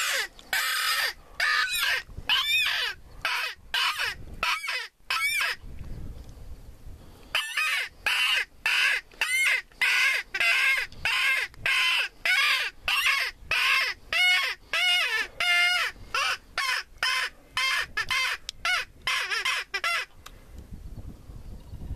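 A predator call sounding a fast series of short, wavering, squealing distress cries, about two to three a second, used to lure coyotes. The calling pauses briefly about six seconds in, then resumes and stops shortly before the end.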